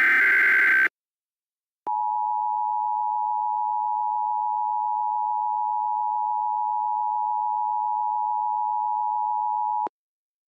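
The last burst of the Emergency Alert System's digital header, a harsh data screech, ends about a second in. After a second of silence the EAS two-tone attention signal sounds steadily for about eight seconds and cuts off abruptly.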